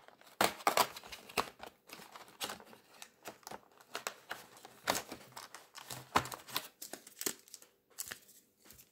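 Cardboard advent calendar door being pried open and a foil-wrapped trading card packet pulled out and handled: a run of irregular clicks, scrapes and crinkles.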